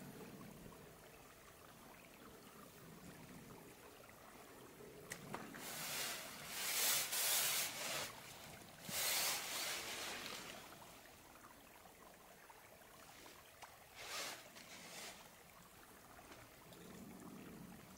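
Warbonnet Superfly hammock tarp fabric rustling in a few short spells as it is pulled out and spread over the ridgeline. The loudest spells come about seven and nine seconds in, with a shorter one near fourteen seconds.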